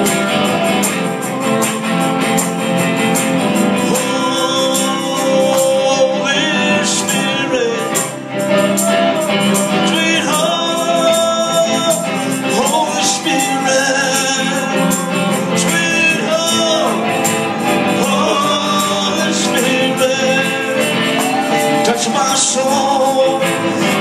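Music: a song with a singing voice over instrumental backing.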